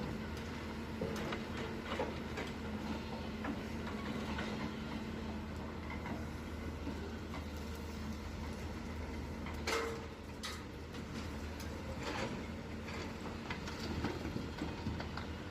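Hyundai hydraulic excavator's diesel engine running steadily while it loads mud and stones, with scattered knocks and clatter. A sharp metallic clank comes just under ten seconds in, with two or three more a few seconds later.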